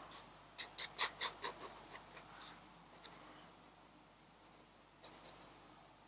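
Pencil scratching on sketchbook paper: a quick run of about eight short strokes, some four a second, then two more strokes near the end.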